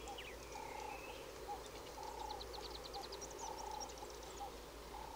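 Faint wildlife ambience: an animal call repeating about twice a second, with higher chirps over it and a quick run of about a dozen high notes about two and a half seconds in.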